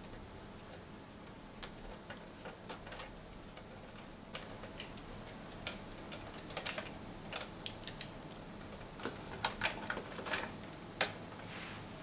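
Light, irregular clicks and taps of plastic parts and wiring being handled inside an opened Sony CFS-W600 cassette boombox as its cassette deck assembly is moved. The clicks are sparse at first and come thicker in the second half.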